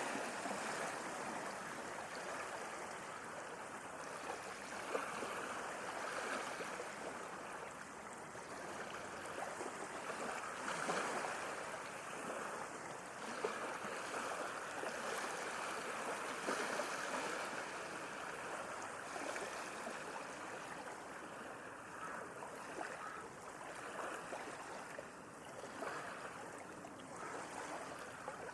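Sea water washing and lapping: a continuous watery rush with fine fizzing detail that swells and eases gently every several seconds.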